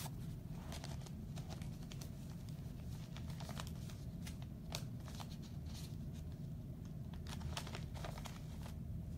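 Crinkling and rustling of foil trading-card pack wrappers, in scattered faint crackles over a steady low hum.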